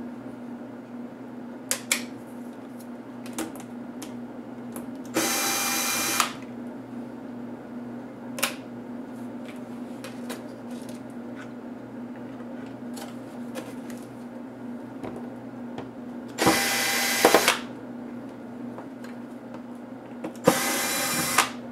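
Cordless electric screwdriver running in three short bursts of about a second each, backing out small screws from a laptop's display frame and hinges. A few small clicks and taps fall between the bursts, over a steady low hum.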